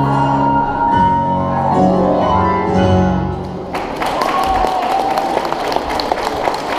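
Two pianos played as a duet sound their final chords, which ring and then stop about halfway through; an audience then breaks into applause.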